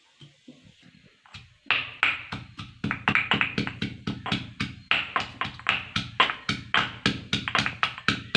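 Stone pestle pounding garlic and ginger in a stone mortar, about three strikes a second. It starts about a second and a half in after a few faint taps of pieces dropping in.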